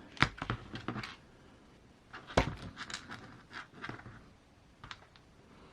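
Small parts and tools being handled on a workbench during an RC crawler's axle swap: scattered light clicks and taps, with two louder knocks, one just after the start and one about two and a half seconds in.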